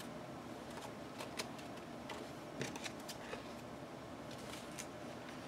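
Paper and craft tools being handled on a work table: light rustling with a few small, scattered clicks and taps.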